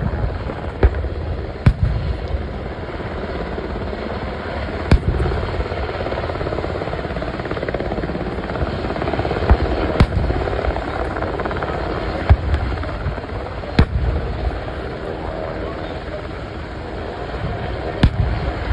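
UH-60 Black Hawk helicopter flying low past, a steady rotor and turbine rumble. Sharp pyrotechnic bangs from a staged ground attack break over it every few seconds.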